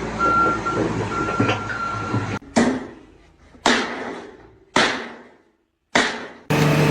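Four heavy strikes about a second apart, each dying away, after a stretch of mixed machinery noise with an on-and-off steady beep.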